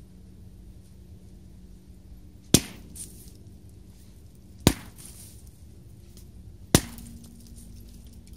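Sledgehammer blows on scrap metal, three heavy strikes about two seconds apart, each with a short ring after it.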